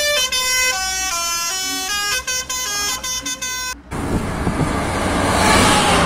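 Truck-mounted telolet (basuri) musical air horn playing a quick tune of steady held notes that step up and down in pitch. About four seconds in it cuts off abruptly to the rushing noise of highway traffic, which swells as a vehicle approaches.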